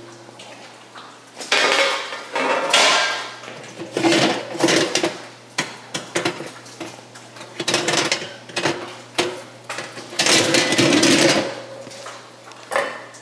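Metal bakeware and wall-oven racks clattering and scraping as a cookie sheet is slid out and an oven rack is pulled and pushed back, in several separate bursts over a steady low hum.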